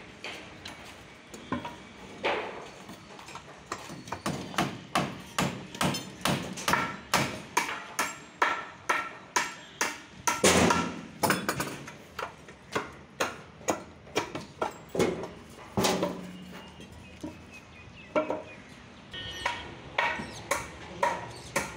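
Hammer nailing timber planks of staircase formwork: a long run of sharp blows, about two a second, that thins out after about sixteen seconds and picks up again near the end.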